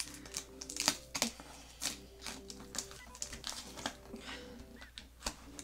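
Safety scissors scraping and picking at packing tape on a cardboard shipping box, a string of irregular scrapes and taps as the tape resists.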